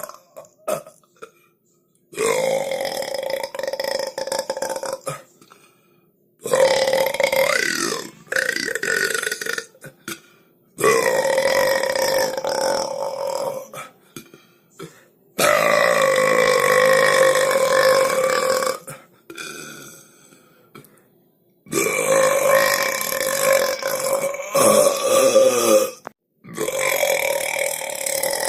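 A run of long, loud belches, about six of them. Each is held for three to four seconds at a fairly steady pitch, with short silent gaps between them.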